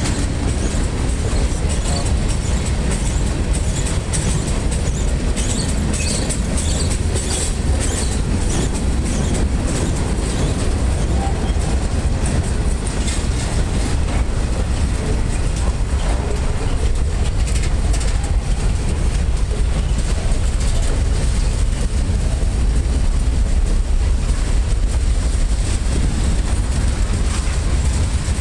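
Freight train cars rolling past close by: a steady heavy rumble of steel wheels on rail, with scattered clicks as the wheels cross rail joints and a thin high squeal over the top.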